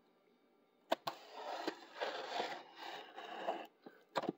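Hobby knife slitting the plastic shrink wrap on a cardboard model-kit box, and the film rustling and tearing as it is cut and pulled. It is a scratchy noise in three or so strokes, starting about a second in after a sharp click, with a couple more clicks near the end.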